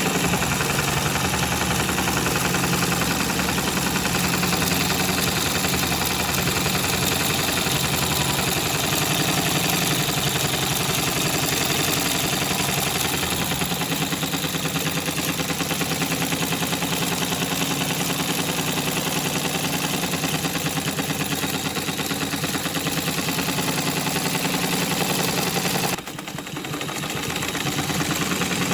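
Electric sewing machine running fast and steadily, the needle stitching rapidly through fabric fed by hand under a free-motion quilting foot. Near the end it briefly slows and then speeds back up.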